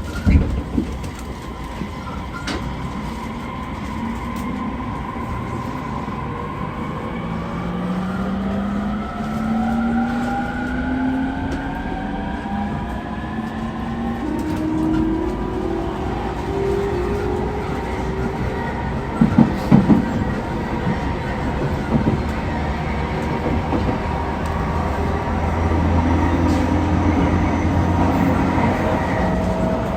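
E231-1000 series electric commuter train accelerating, heard inside the car: the traction motor and inverter whine climbs steadily in pitch over a steady running rumble, with a short run of knocks from the wheels about two-thirds of the way through.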